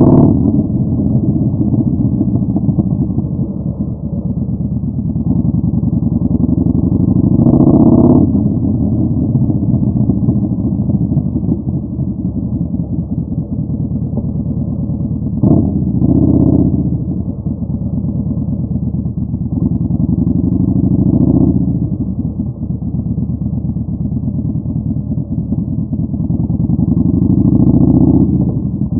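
Yamaha Bolt 950's air-cooled V-twin running through a Vance & Hines Twin Slash staggered exhaust while riding. The throttle rolls on and off, so the exhaust note swells louder several times and drops back between.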